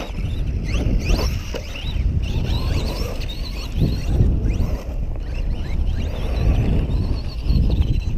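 Brushless electric motor of a Redcat Volcano EPX Pro RC truck on its stock Redcat setup and a 2S battery, whining up and down in pitch again and again as it accelerates and lets off, over a steady low rumble.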